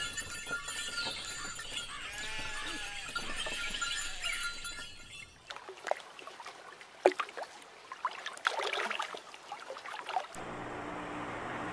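Open-air rural ambience over flooded paddy fields, with scattered bird calls and short sharp chirps. A low steady hum comes in near the end.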